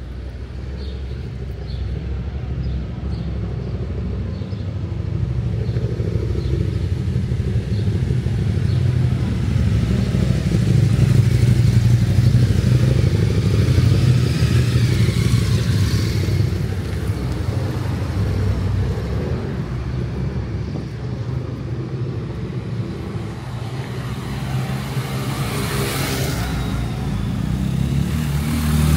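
A motor vehicle's engine running, a low rumble that swells to its loudest about halfway through and then eases off.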